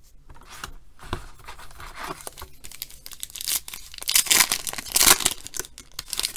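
Foil wrapper of a 2013 Panini Certified football card pack crinkling as it is taken from the box and handled, then torn open, with the loudest rips about four to five seconds in.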